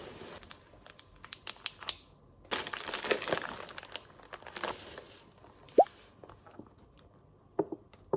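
Crinkling, rustling handling noise with scattered clicks, densest in the middle, then a single short drip-like plop about six seconds in.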